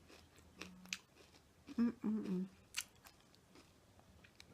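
Close-up mouth sounds of a person biting and chewing a spicy fried chicken thigh: scattered crunches and wet mouth clicks, with a brief vocal sound from the eater about two seconds in.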